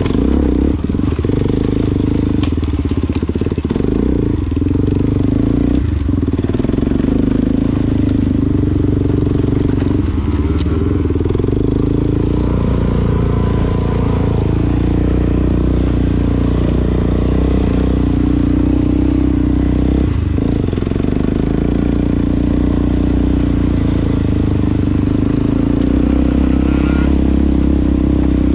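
Off-road vehicle engine running at a fairly steady speed while riding over rough ground, with a few brief knocks and rattles.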